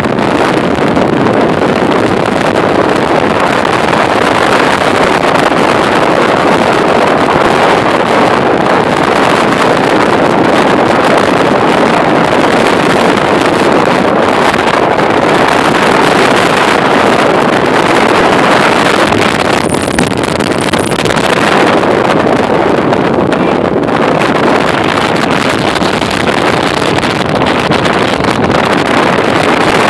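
Formula powerboat running at top speed: a steady rush of wind over the microphone and water along the hull, with the boat's engine running under it.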